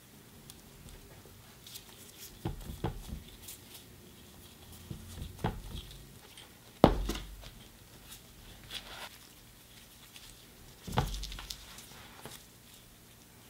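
Gloved hands setting chocolate pieces and marshmallows onto slices of bread on a wooden cutting board: scattered soft taps and handling noises, with one sharper, louder knock about seven seconds in.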